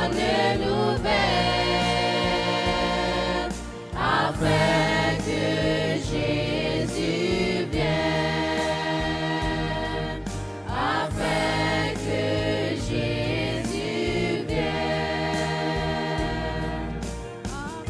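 Youth choir singing a French gospel song in long held, sustained phrases over a steady low accompaniment.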